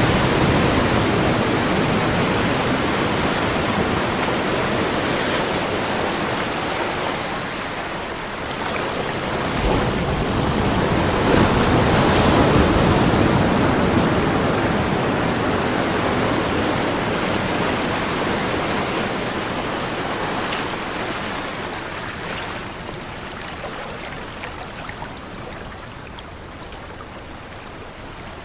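Ocean surf rushing steadily as waves break and wash in. It swells again about ten seconds in, then slowly recedes and grows quieter toward the end.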